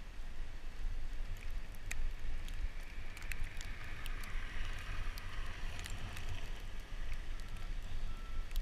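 Wind rumbling on the microphone of a handlebar-mounted camera on a bicycle ridden through snow, with a hiss that swells midway and many sharp ticks scattered throughout.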